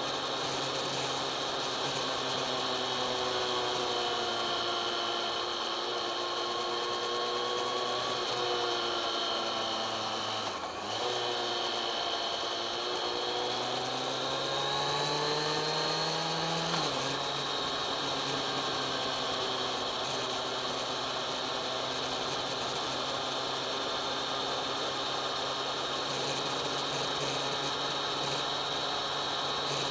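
Kawasaki ZX-10R inline-four engine under way, heard from the rider's camera with wind noise over it. The revs sink slowly as the bike slows, dip briefly about eleven seconds in, then climb. They drop sharply at a gear change about seventeen seconds in, and the engine then cruises at steady revs.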